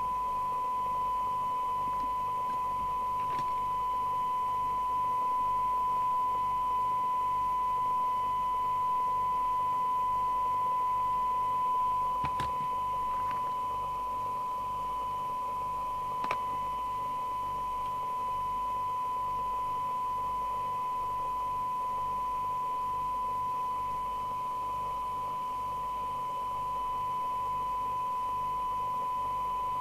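A steady 1 kHz test tone from the CB radio's receiver as it demodulates the signal generator's test signal while its IF coils are being peaked. A faint low pulsing hum runs underneath, and there are a few faint clicks, the clearest about twelve and sixteen seconds in.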